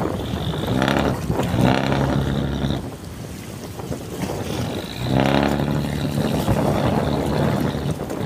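Fishing boat's diesel engine running, its pitched drone swelling in two stretches of a couple of seconds each with a dip between, while the boat gets ready to pull out. Wind on the microphone underneath.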